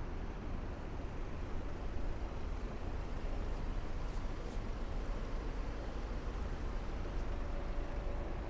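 Steady rumble of city road traffic: cars and heavier vehicles passing, with a few faint ticks a little past the middle.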